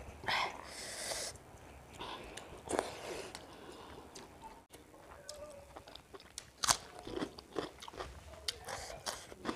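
Close-miked mukbang eating sounds: chewing of water-soaked rice (pani bhat) with greens, along with wet squelching and light clicks as a hand mixes the rice in water in a steel bowl. One sharper click stands out about two-thirds of the way through.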